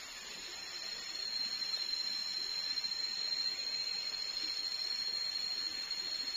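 Forest insects droning: a steady, high whistle-like tone over a hiss that swells about a second in and then holds.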